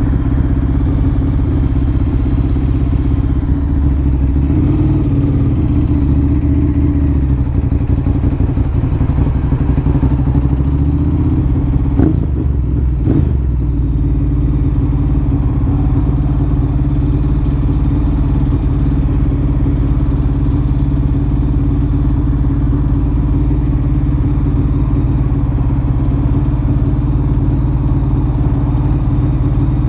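Ducati Monster 1100 EVO's air-cooled L-twin, fitted with a Termignoni exhaust, running steadily under way. Two short knocks come a little before the halfway point.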